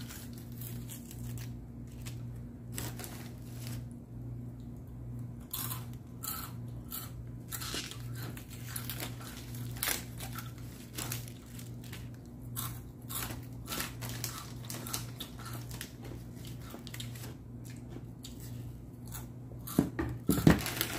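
Dry papery onion skin crackling and tearing in irregular little crackles as it is peeled off by hand, over a steady low hum. A couple of louder knocks come near the end.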